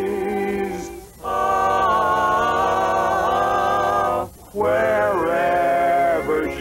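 Sung music: voices holding long notes, breaking off briefly about a second in and again past the middle.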